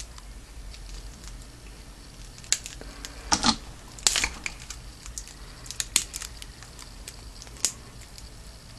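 Plastic shrink-wrap on a card deck box crinkling and tearing as it is worked at with a pen, in a few irregular sharp crackles.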